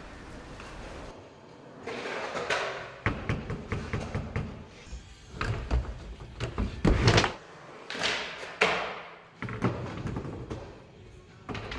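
Skateboard wheels rolling and trucks grinding along concrete parking blocks in slappy grinds, broken by several sharp clacks of the board hitting the block and landing, the loudest about seven seconds in.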